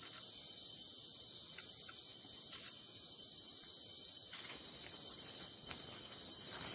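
A steady high insect drone in forest. About four seconds in, a thin, piercing whine comes in and holds, and the sound grows louder with soft rustling and faint ticks.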